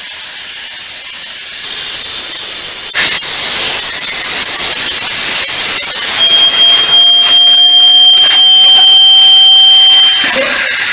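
Compressed air hissing out of the opened drain valves on a truck air brake system's primary and secondary reservoirs as the system pressure bleeds down. The hiss starts about a second and a half in and grows louder a second later. About six seconds in a steady high-pitched low-air warning buzzer joins it and stops near the end, where the hiss also eases.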